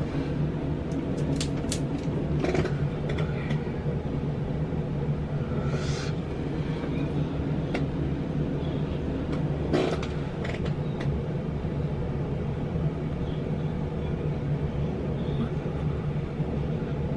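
Steady low hum of a bathroom exhaust fan, with a few short taps and knocks from things being handled near the microphone.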